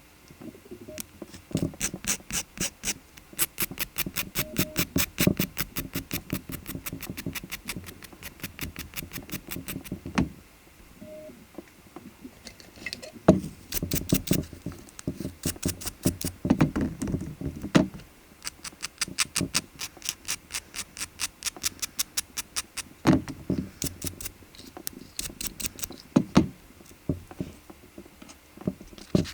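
Rapid short scraping strokes of a nail-prep tool on fingernails, several strokes a second, in runs of a few seconds with short pauses between them.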